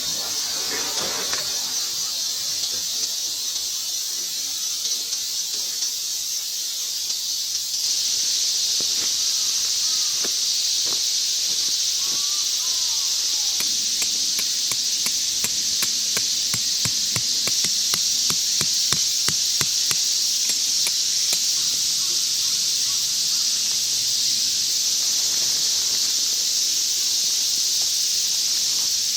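Steady high-pitched chorus of insects, growing louder about a third of the way in. Through the middle comes a run of quick clicks and taps.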